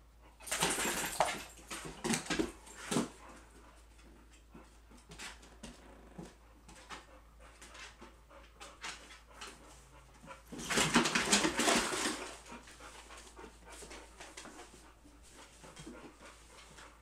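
A boxer and a pit bull puppy playing together make dog noises in two loud bursts, the first about half a second in and the second about eleven seconds in, each lasting a second or two. Quieter scattered sounds fill the gap between them.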